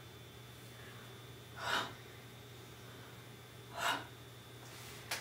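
A woman's two short, sharp breaths through the mouth, about two seconds apart, taken with the movements of a mime exercise.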